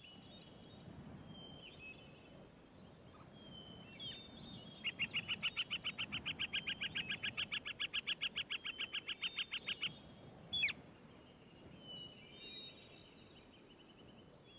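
Birds chirping, with short high calls and, in the middle, a rapid trill of evenly repeated notes, about six a second, lasting about five seconds.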